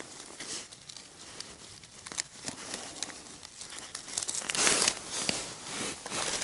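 Crinkling and rustling of handled material, broken by scattered small clicks and knocks, with a louder rustle near five seconds in.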